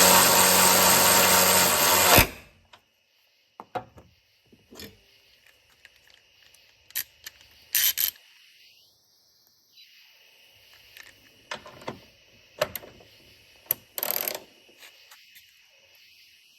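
DeWalt DCF503 12-volt cordless 3/8-inch ratchet running its motor steadily for about two seconds, then stopping sharply. Scattered light clicks and knocks follow.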